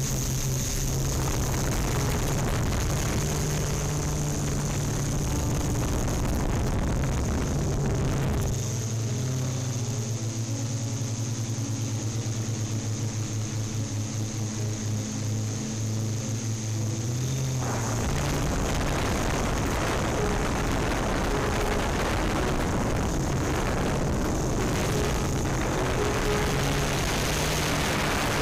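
Yuneec Typhoon Q500+ quadcopter's motors and propellers, heard from the drone's own camera: a steady low hum with a high whine over it, under a rushing noise of air. For about ten seconds in the middle the rushing drops away and the hum pulses.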